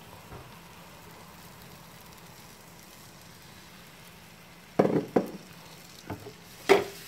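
Pancake batter sizzling faintly in a hot buttered frying pan, a steady soft hiss. Near the end come a few short, sharp knocks, the loudest things heard.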